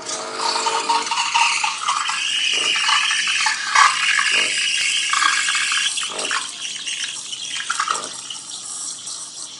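Wingkin Retro 210 espresso machine running with a loud hissing, gurgling rush of water or steam, easing off in the last couple of seconds.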